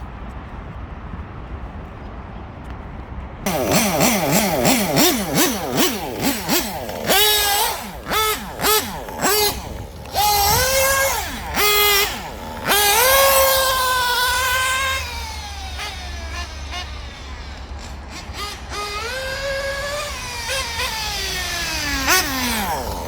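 Nitro RC car glow engine starting about three and a half seconds in, revved in short throttle blips, then falling back to a steadier idle. Near the end its pitch drops sharply as it dies at idle, which the owner puts down to a bad turbo glow plug that won't keep it lit.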